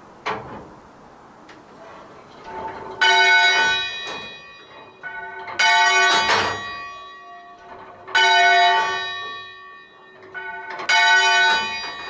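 A church bell rung full circle, heard close up, striking four times about two and a half seconds apart, alternating handstroke and backstroke. Each strike rings on and fades. A sharp knock comes just after the start.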